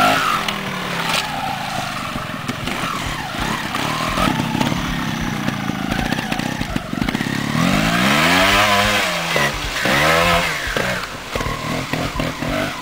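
TRS 250cc trials motorcycle's two-stroke single-cylinder engine, revved in short throttle blips with two long revs about eight and ten seconds in, each rising and falling in pitch.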